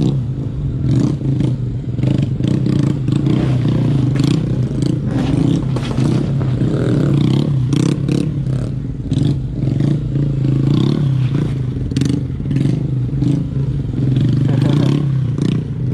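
Motorcycle engine running at a steady pitch, with frequent short clattering knocks over it.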